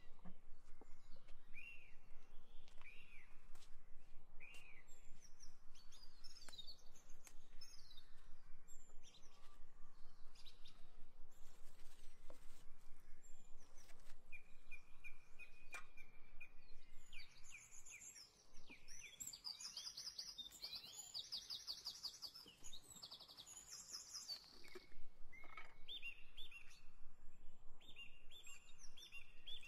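Wild birds chirping and singing: short repeated whistled calls throughout, a burst of fast high trills in the middle, and a run of quick repeated notes near the end. Faint scattered clicks sound underneath.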